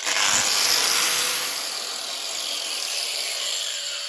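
Angle grinder grinding back a fresh weld on steel body panel, a loud hissing grind that slowly eases off, its pitch sinking in the second half.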